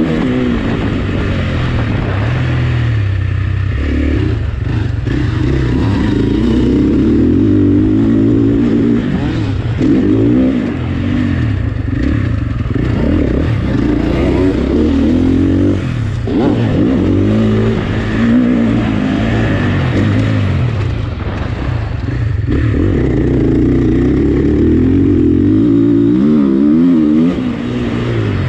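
Dirt bike engine heard close from the bike itself, revving up and dropping back again and again as the throttle is opened and closed while riding, with several short dips in level.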